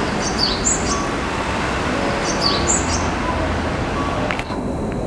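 A Tobu 10000-series electric train running into the platform with a steady rumble, under an identical high bird-like chirp that repeats about every two seconds, typical of a Japanese station's recorded birdsong guidance sound. A brief high squeal comes near the end.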